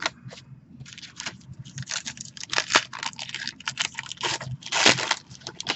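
Trading-card pack wrapper crinkling and tearing as a pack is ripped open and the cards are handled: a run of sharp rustles and crackles, the loudest about five seconds in.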